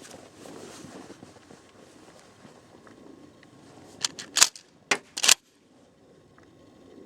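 Remington 870 12-gauge pump shotgun being handled: about four seconds in, a few quick metallic clicks, then two sharp clacks about half a second apart, as the slide is racked back and forward to chamber a shell.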